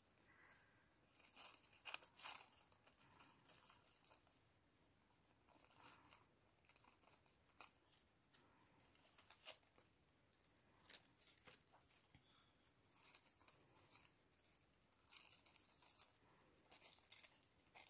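Faint, scattered snips of small craft scissors cutting tissue paper, with the paper crinkling as it is turned and handled.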